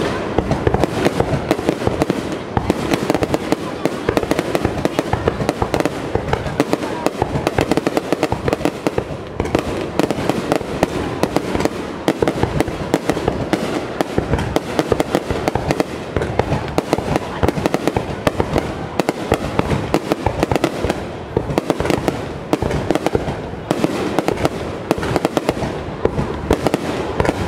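Aerial fireworks at close range: a dense, continuous barrage of bangs and crackling from shells bursting overhead, with no let-up.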